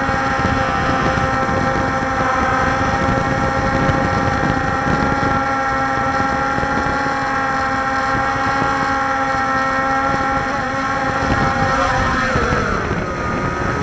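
Walkera Scout X4 quadcopter's electric motors and propellers whining steadily, heard from its onboard camera with wind noise on the microphone. About twelve seconds in, the pitch drops as the motors throttle down for landing on grass.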